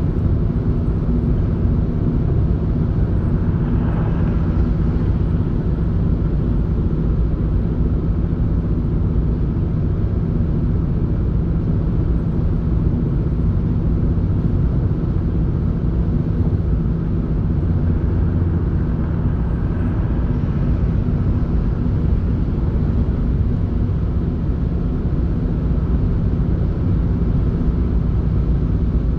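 Steady engine drone and road rumble inside a moving car's cabin, with two brief swells in the noise.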